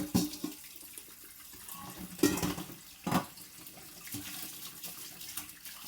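Kitchen tap running into a sink as a floury dishcloth is rinsed under it, with a few louder sudden splashes or knocks, the loudest about two seconds in and another about a second later.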